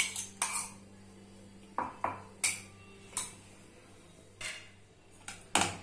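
A metal spoon scraping and tapping against a steel grinder jar as thick chutney is scooped out into a bowl. There is a quick run of clinks at the start, then scattered single knocks.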